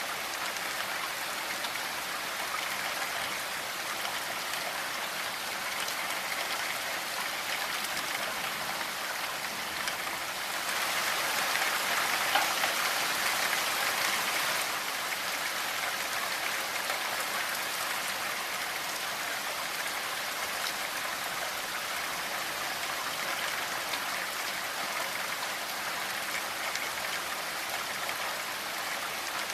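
Steady rainfall, an even patter of raindrops on surfaces, swelling a little louder for a few seconds near the middle.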